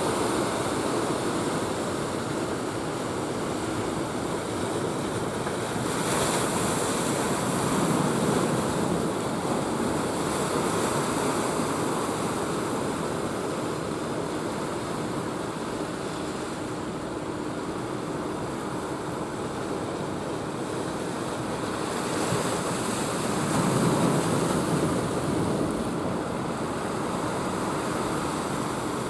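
Ocean surf breaking on a beach, a continuous wash of waves that swells as bigger waves break about six seconds in and again a little past twenty seconds, with some wind.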